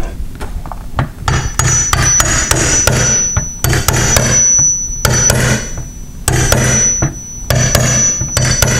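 Repeated quick hammer taps on a nail set held against a steel door, denting the metal around a hole to recess it for filler. Background synthesizer music comes and goes underneath.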